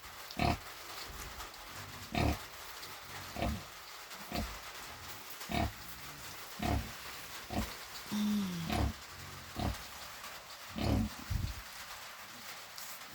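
Sow with newborn piglets grunting in short, low grunts at a steady pace of about one a second, the rhythmic grunting of a nursing sow. One longer call that falls in pitch comes just past the middle.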